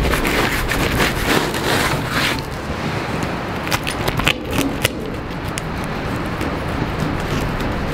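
Knife cutting through a cheese pizza with a charred crust, with a few sharp crunches and scrapes about halfway through, over a steady rushing background noise.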